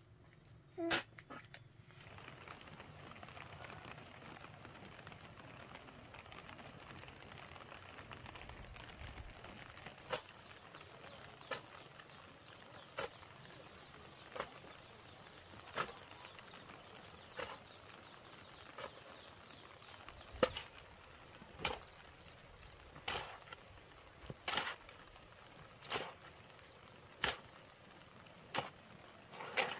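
Sharp blows of a hand tool struck at an even pace, about one every second and a half, beginning about ten seconds in, over a steady background hiss.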